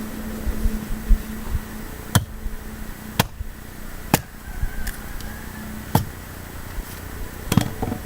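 Firewood being chopped by hand: five sharp strikes into green, wet wood, about one to two seconds apart, with a few duller knocks near the start.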